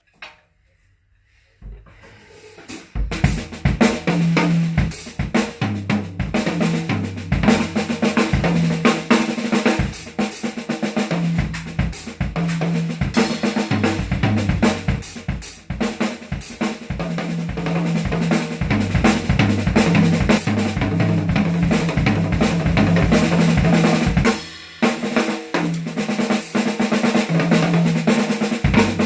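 A DNA drum kit with Smyrna cymbals played in a continuous groove, kick, snare and fills under cymbal wash, as a tone check. It starts about two seconds in and breaks briefly near the end before going on.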